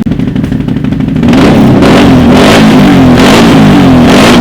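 2016 Can-Am Renegade XMR 1000R's V-twin engine running loud through a Big Gun EXO series aftermarket exhaust. It idles at first, then from about a second in it is revved in repeated blips, its pitch rising and falling about four times.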